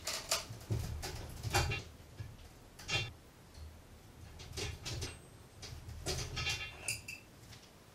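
Metal wrench working the brass connection nuts on an acetylene regulator: scattered clicks and knocks with a brief metallic ring, as the fittings are tightened further to stop an acetylene leak.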